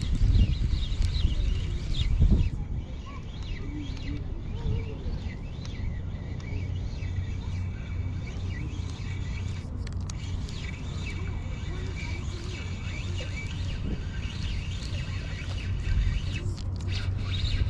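Wind rumbling on the microphone, heaviest in the first couple of seconds, with birds chirping faintly.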